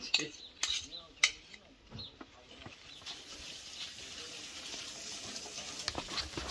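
Spoons and dishes clinking a few times, then a steady hiss. Near the end a spoon starts to scrape and click through thick honey-cake batter in a plastic bowl.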